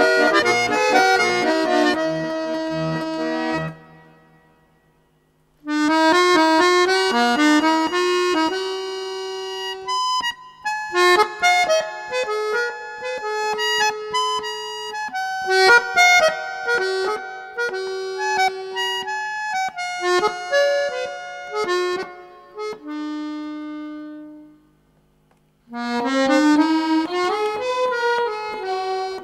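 Background instrumental music, a melody of pitched notes that stops for about a second and a half twice, about four seconds in and again near the end.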